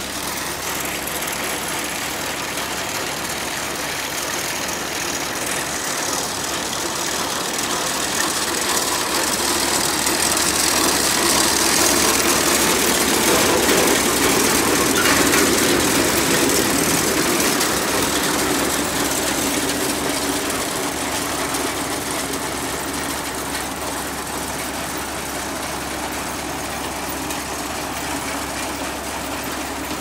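Tractor engine running steadily, with a continuous mechanical rattle over it. The sound grows louder around the middle and eases off again.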